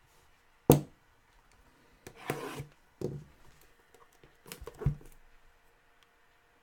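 A cardboard trading-card box being handled and opened on a table: a sharp knock about a second in, a stretch of cardboard rubbing and sliding, then a thump and another knock.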